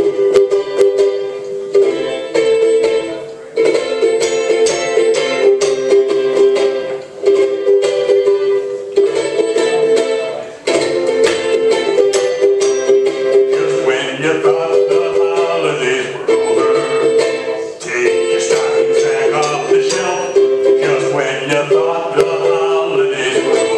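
Ukulele strummed in a steady rhythm, playing a song. A second, wavering melody part joins a little over halfway through.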